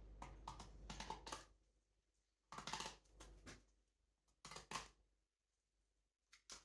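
Filleting knife working along a bass's backbone on a plastic chopping board: a string of short, faint scraping crunches with pauses between them.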